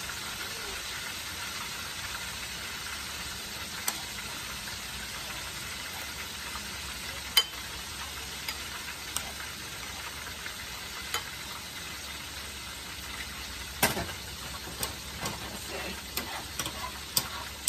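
Steady sizzle of food frying in hot oil on the stovetop, with a dozen or so sharp clinks of a utensil against a pan, most of them in the last few seconds.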